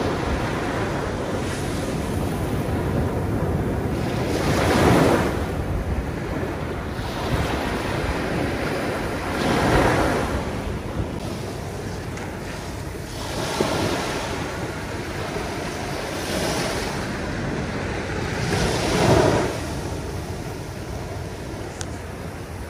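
Small waves breaking and washing up a shell-strewn sandy beach, the surf swelling louder about every three to five seconds and easing off between.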